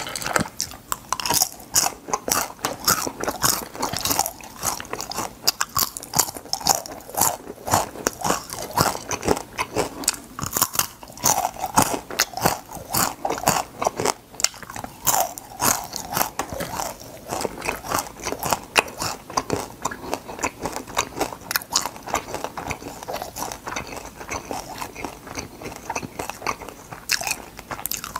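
Crunching and chewing of crispy fried crab, the shells cracking between the teeth in rapid, irregular bites.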